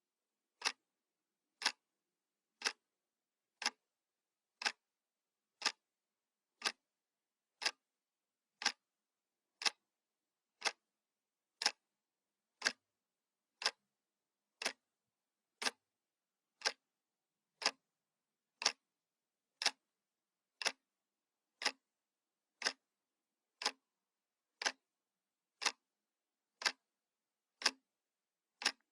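Analog clock ticking steadily, one sharp tick each second with silence between ticks.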